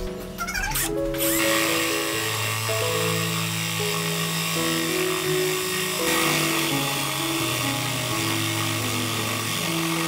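A 20V cordless drill boring into a wooden board, running steadily from about a second in, over background music with a stepped melody.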